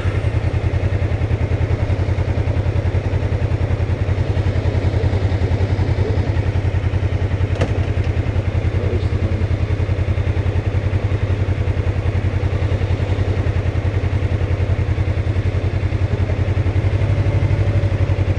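Motorcycle engine idling steadily, with an even low pulse that grows a little louder near the end.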